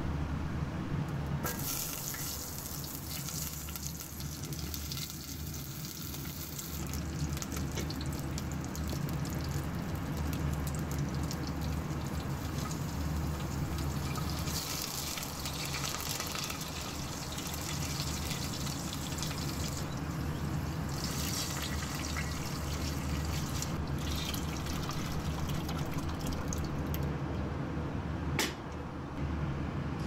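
Mustard seeds and urad dal sizzling and crackling in hot oil in a stainless steel pot, with curry leaves stirred in, in bouts that come and go over a steady low hum. One sharp click near the end.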